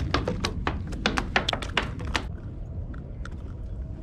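Quick, irregular sharp taps and clicks as a just-caught fluke is brought up and handled on wooden pier boards, densest for about the first two seconds, then only a few scattered ones.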